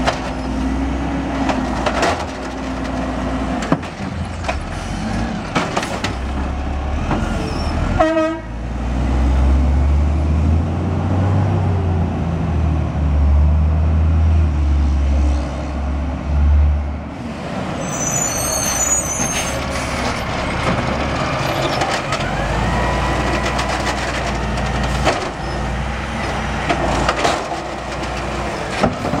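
Automated side-loader garbage trucks' diesel engines running, with several sharp bangs in the first seconds as the lifting arm slams a cart against the hopper to empty it. In the middle comes a long stretch of heavy low engine rumble as a truck pulls away, then a short air-brake hiss.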